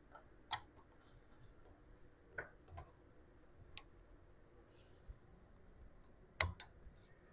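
Light metallic clicks as a top compression ring is worked by hand into its groove on a small-block Chevy piston. The clicks come singly and irregularly, with the sharpest two close together near the end.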